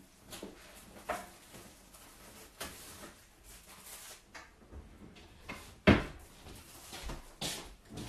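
Rummaging and handling sounds: scattered light clicks, rustles and knocks as things are picked up and moved while a plastic sheet sleeve is being fetched, with one sharp knock about six seconds in.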